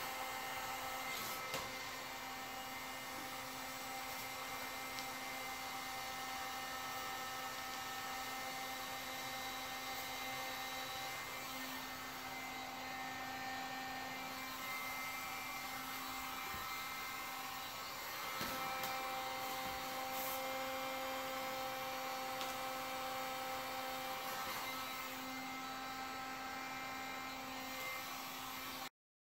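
Handheld electric heat gun running steadily, its fan whining with several held tones while it blows hot air to melt a folded shrink-wrap seam shut. It cuts off abruptly just before the end.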